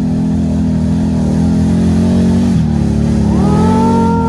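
ATV engine with an RJWC aftermarket exhaust running at a steady low note under load on a dirt hill climb, then revving up, rising in pitch, a little over three seconds in.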